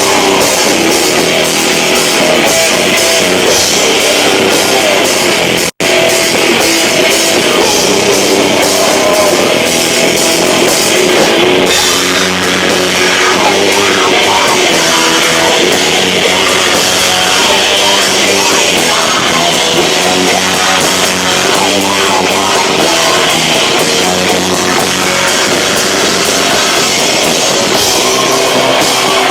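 Live rock band playing loud, with drums and distorted guitars, recorded on a camcorder microphone that overloads at this volume. The sound cuts out for an instant about six seconds in.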